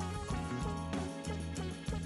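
Background music: guitar over a bass line and a steady drum beat.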